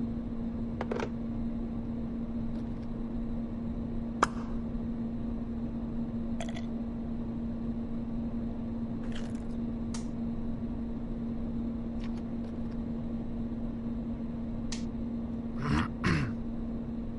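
A steady low hum with scattered clicks and taps from switches and keys on the control consoles being worked. The sharpest click comes about four seconds in, and there is a short louder burst of sound near the end.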